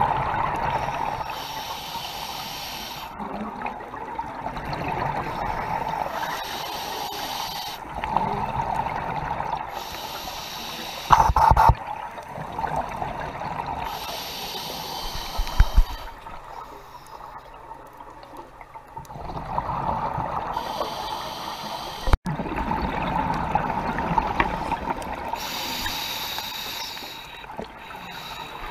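Scuba diver breathing underwater through a regulator: exhaled bubbles rush in long surges of a few seconds each, with quieter gaps at each inhalation, over several breaths. Two short, louder knocks come near the middle.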